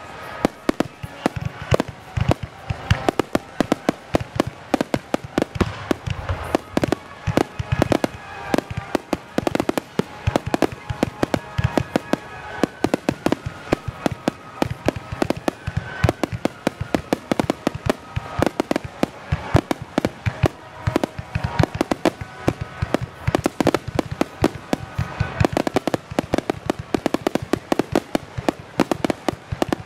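Aerial fireworks shells bursting in a rapid, continuous barrage, with sharp bangs several times a second and crackling between them.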